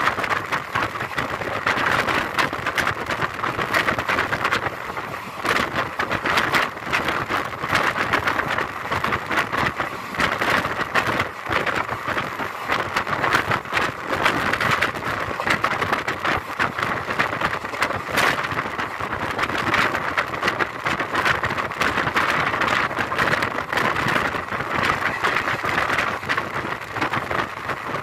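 Express passenger train running, heard from on board: a steady noise of wheels on the track and air rushing past, with frequent rattles and clicks.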